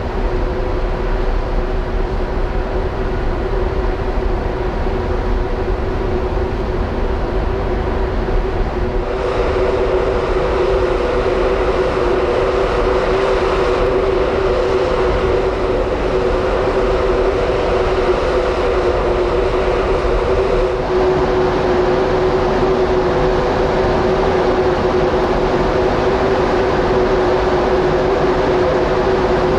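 Steady drone of the ferry Mega Smeralda's machinery heard on its open deck: a constant hum with two held tones over a rushing noise of engine, ventilation and passing water. The mix shifts slightly twice, growing a little brighter and then deeper.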